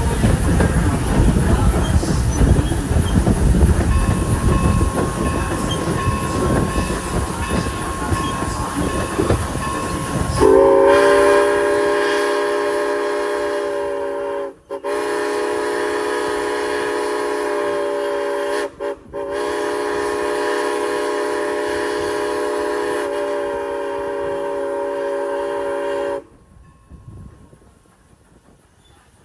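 A moving train rumbles along the rails, then a steam locomotive's multi-tone whistle sounds the grade-crossing signal: long, long, short, long. The last long blast cuts off abruptly near the end.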